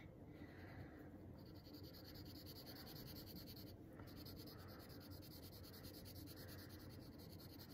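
Faint scratching of a colored pencil shading on paper, in repeated short strokes.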